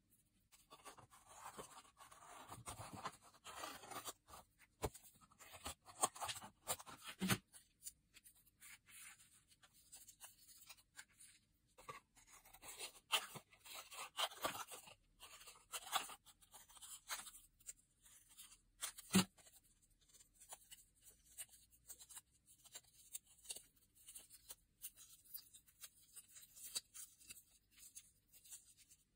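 Hands handling and cutting a paper plate: the card rustles and crunches as curved strips are pressed down and scissors snip through it, with a few sharp clicks.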